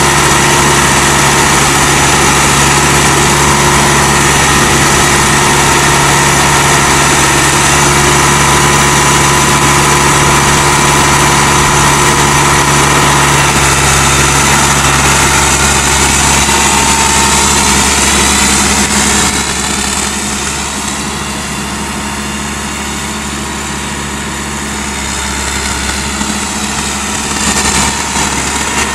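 Ford 7740SL tractor's 5.0 L four-cylinder diesel engine running steadily at low speed as the tractor drives and turns. The engine note gets quieter for several seconds past the middle, then louder again near the end.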